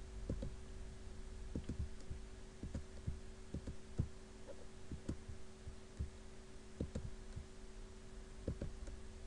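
Soft, irregular clicks and thumps of a computer mouse being clicked, over a steady low electrical hum.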